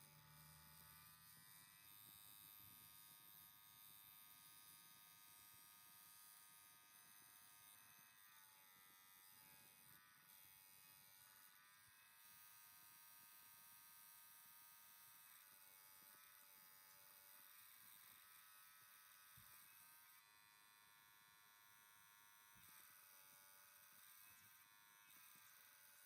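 Faint, steady electric buzz of a Sierra stove's small battery-powered blower fan, its pitch shifting slightly now and then.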